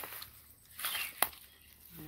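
A quiet pause with a faint murmur of a voice, then one sharp click just past a second in.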